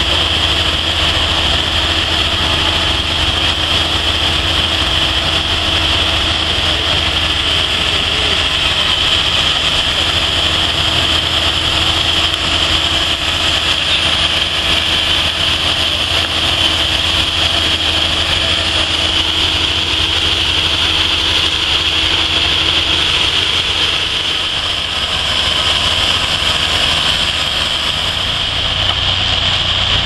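Several portable sawmill engines running at once in a steady mechanical drone, with a constant high hiss over it.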